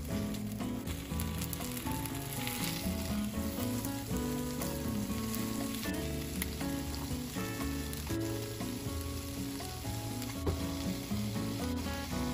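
Pieces of chicken sizzling as they fry in a nonstick frying pan, turned over with wooden chopsticks. A single sharp tap comes about ten seconds in.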